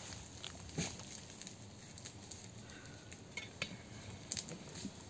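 Metal spoon clinking and scraping against steel and aluminium cooking pots, a few sharp clinks standing out over faint outdoor background.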